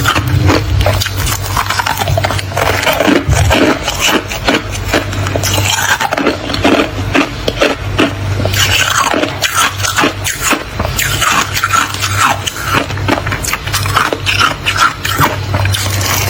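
Thick freezer frost crunching and crackling close to the microphone in dense, irregular bites, over a steady low hum.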